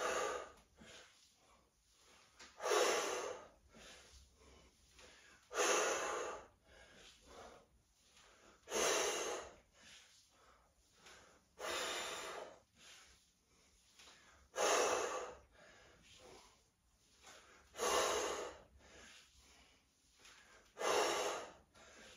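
A person breathing hard through a dumbbell squat-and-press set: a loud, forced breath about every three seconds, eight in all, with quieter breaths in between, in time with the reps.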